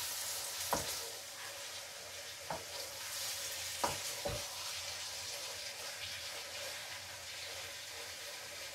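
Pasta frying in a pan with a steady sizzle, with four sharp knocks of a utensil against the cookware in the first half.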